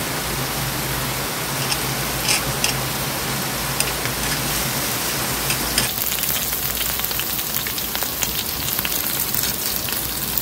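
Food sizzling and crackling in a hot pan; the crackle grows denser about six seconds in.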